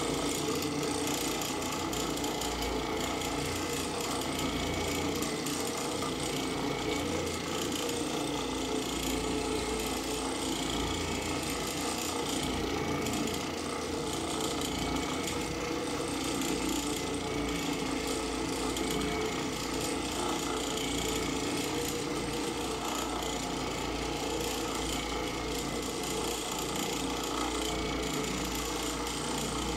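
Oreck orbital floor machine running steadily as it scrubs carpet, a continuous even mechanical drone.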